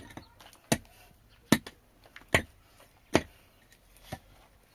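A tool chopping at wood: six sharp blows, a little under a second apart.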